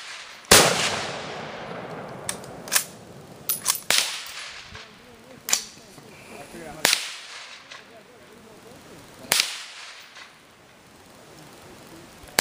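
Rifle shots at an outdoor range: a loud shot about half a second in with a long echoing tail, then about seven more shots of varying loudness at uneven intervals, some faint. They come from bolt-action military rifles firing single aimed rounds.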